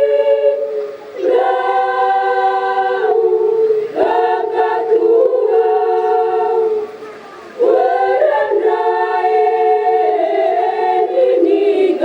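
Choir singing held chords in harmony. The singing breaks briefly about a second in and again for about half a second near seven seconds in, then picks up again.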